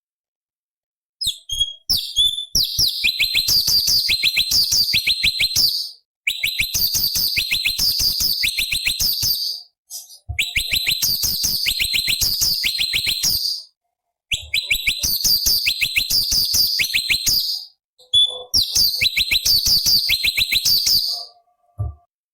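A cucak cungkok leafbird singing in rapid-fire phrases of sharp, high repeated notes. It sings five phrases of about three to four seconds each, separated by short pauses, after a second of silence.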